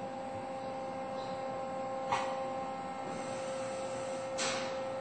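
Steady hum carrying two constant tones over a light hiss, broken twice by short hissing bursts about two seconds apart.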